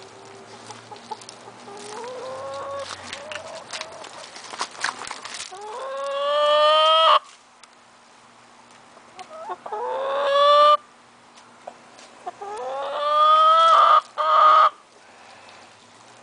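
Chickens calling: three loud, drawn-out calls that rise in pitch and then hold, each breaking off abruptly, and a short fourth call near the end. Softer rising calls and a quick run of clicks come before them.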